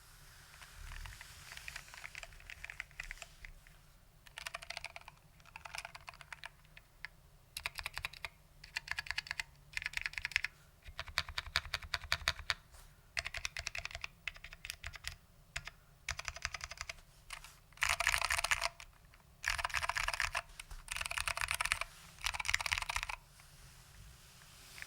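Mechanical keyboard with foam-damped SKCM Orange Alps switches being typed on in quick bursts, a fast patter of key clicks broken by short pauses. The typing is densest and loudest in the last few seconds.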